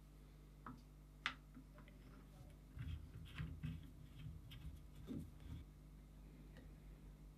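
Faint scattered clicks and light knocks, bunched together in the middle, over a steady low electrical hum.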